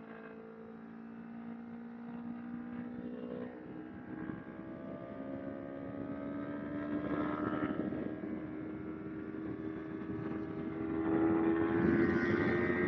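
Kawasaki Ninja 250R's parallel-twin engine running, its note steady for the first few seconds, then climbing slowly in pitch and getting louder as it revs up toward the end.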